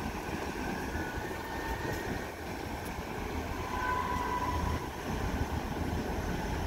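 Steady low rumble of the ro-pax ferry Stena Embla's engines and propellers as she gets under way, with the wash churning astern and faint whining tones coming and going.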